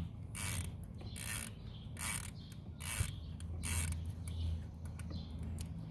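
Ratchet wrench clicking in five short strokes, about one every 0.8 seconds, as the starter's bolts are worked loose.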